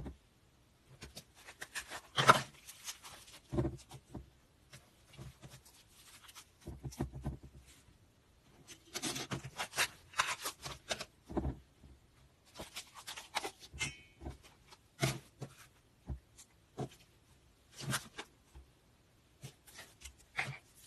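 Slime being squished and poked by hand: irregular clusters of sticky crackles and small pops, with short quiet gaps between squeezes.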